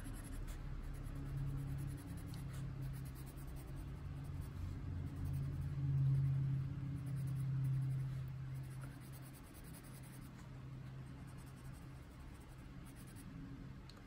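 Prismacolor coloured pencil scratching softly as it shades across the page, over a steady low hum that swells in the middle and fades in the second half.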